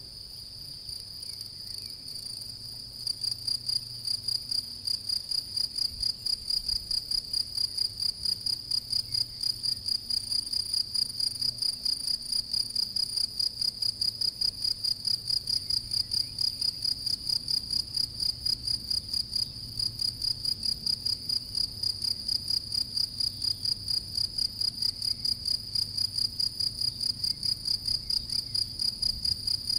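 European field cricket (Gryllus campestris) singing its calling song: a steady, high-pitched chirping at roughly three chirps a second. It is weaker for the first few seconds and comes back loud about three seconds in.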